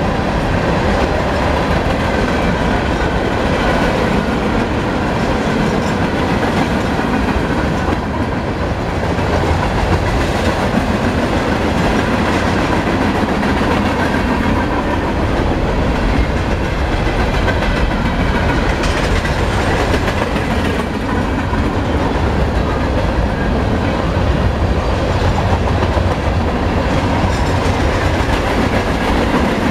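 Norfolk Southern mixed freight cars rolling steadily past: a continuous rumble of steel wheels on rail with clickety-clack over the rail joints.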